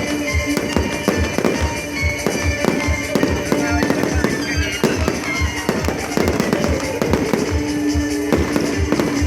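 Fireworks display: bursts and crackling bangs going off in quick succession, over music with a steady beat.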